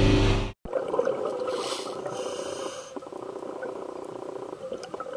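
A scuba diver breathing through a regulator, heard muffled through an underwater camera housing, with a hissing inhale between about one and a half and three seconds in. It follows the last half second of talk over a boat engine's drone, which cuts off sharply.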